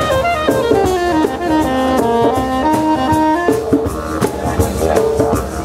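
Live ethnic-jazz band playing: didgeridoos drone underneath a tenor saxophone melody, with drum kit and hand-drum hits. The melody steps down in a long descending run over the first three seconds, then jumps back up.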